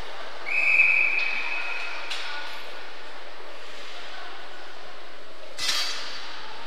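Ice hockey referee's whistle: one steady blast of about a second and a half, starting about half a second in, stopping play after a save. A short burst of noise follows near the end.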